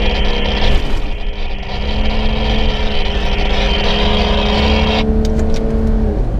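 4x4 SUV engine pulling at steady revs while driving across a sand dune, with a loud low rumble and a rushing hiss over it. The hiss cuts off about five seconds in, and the engine note drops away shortly before the end.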